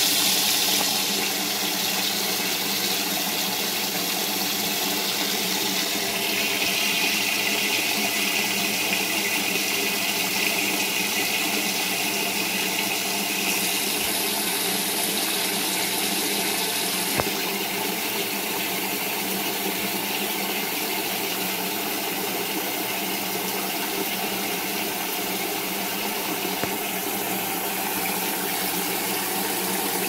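Brastemp top-loading washing machine working with its tub full of water. Steady rushing and churning of water, with a low motor hum under it.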